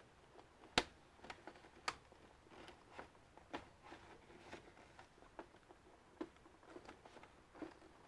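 Faint scattered clicks and taps of a plastic computer case being pried open with playing cards while feeling for the hidden clips that hold the back cover. The sharpest clicks come about a second in and just before two seconds.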